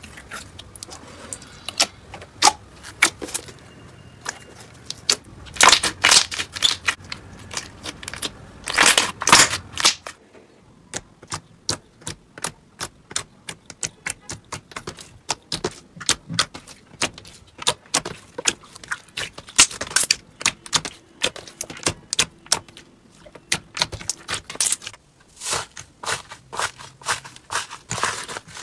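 Hands squeezing and pressing jelly slime, making a run of crackling clicks and pops. The sound is thicker and swelling for the first ten seconds or so, then turns to sharper, more separate clicks.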